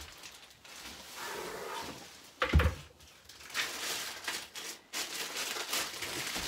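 Parts of a dressmaker's dummy stand being handled during assembly: rustling and clatter, a loud thump about two and a half seconds in, then small knocks and rattles as the stand pole is worked on.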